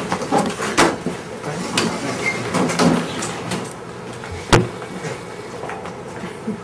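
Classroom bustle as students move about: scattered knocks, clicks and shuffling, with one sharp knock about four and a half seconds in, over a steady low hum.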